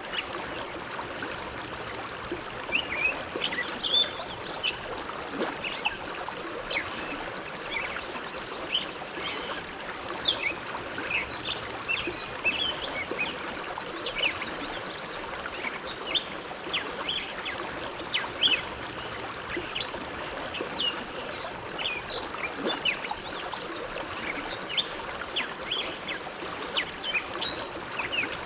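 Bow River flowing past: a steady rush of water with constant small splashes and gurgles.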